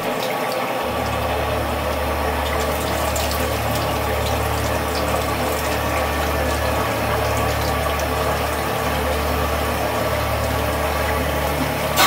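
Water running from a 50-gallon electric water heater's drain valve and splashing onto a concrete floor as the tank is flushed of sediment. A low steady hum joins in about a second in.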